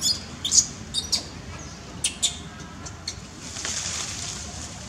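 A handful of short, sharp, high-pitched chirps or squeaks from animals in the trees in the first two and a half seconds, then a steady high hiss from about three and a half seconds in.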